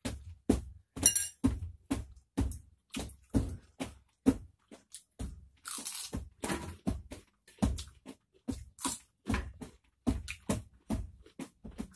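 Close-up crunchy chewing of raw green vegetables: a steady run of crisp bites and chews, about three a second.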